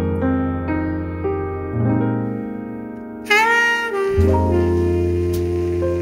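Jazzy background music: keyboard chords over a bass line, with a sliding lead melody coming in about three seconds in.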